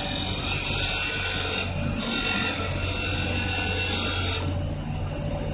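CNC wood turning and carving lathe running, its router spindle whining over a low motor hum as it cuts a spiral into a turning wooden blank. The high whine of the cut drops away near the end.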